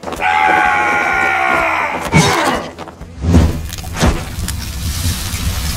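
Logo-intro sound effects: a long held cry-like sound, falling slightly in pitch, for about two seconds, then three heavy hits with deep booms over a low rumble.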